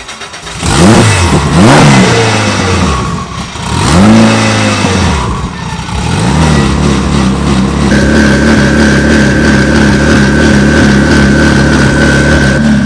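Race car engine revved up and back down twice, then held at a steady note; a steady high whistle joins it about eight seconds in.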